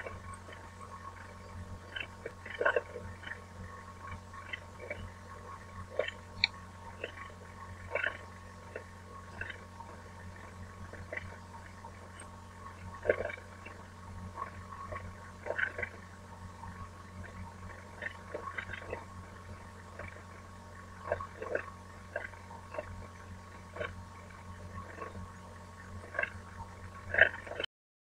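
Steady low electrical hum with a faint constant tone, over which faint clicks and knocks come at irregular moments. It cuts off abruptly just before the end.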